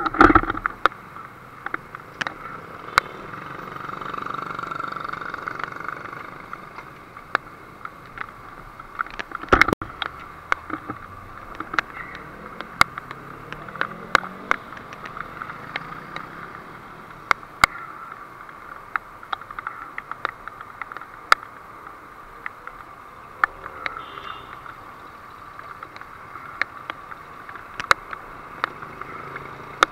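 Road traffic going past, one vehicle swelling up and fading a few seconds in, with frequent sharp clicks and a heavy knock about ten seconds in.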